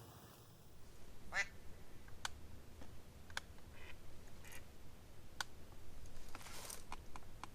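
Faint, scattered duck quacks, short calls a second or so apart.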